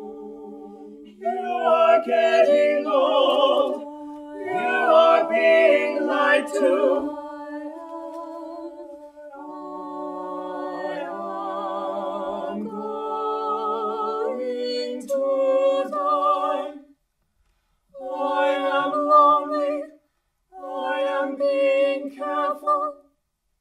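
Small mixed vocal ensemble of male and female voices singing unaccompanied in harmony, with held chords and moving phrases. Near the end the singing breaks into short phrases with brief pauses between them, then stops.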